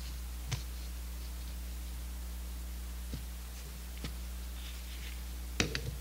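A few isolated small clicks of metal parts and a pick being handled against a Zenith-Stromberg CD-175 carburetor body during disassembly, then a quick cluster of clicks near the end, over a steady low hum.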